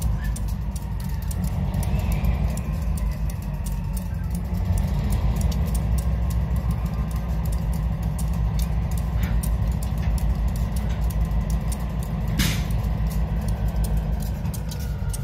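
Diesel locomotives of a freight train rumbling steadily during yard switching, with a single sharp clank near the end.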